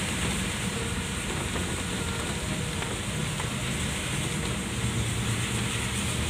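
Rain falling on a moving car's windscreen and body, heard from inside the cabin, over the steady low noise of the engine and tyres on the wet road.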